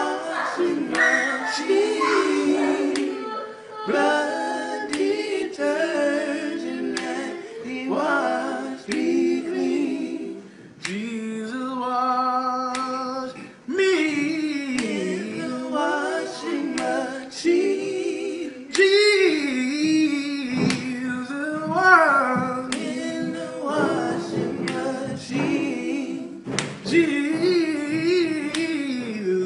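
A gospel quartet of men singing a cappella, several voices in harmony moving through the melody, with one long held note about halfway through. Short sharp clicks sound throughout.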